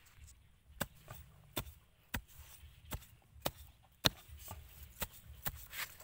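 A large knife blade chopping into the dry soil around a burrow hole: about nine sharp strikes at an uneven pace, the loudest a little after the middle.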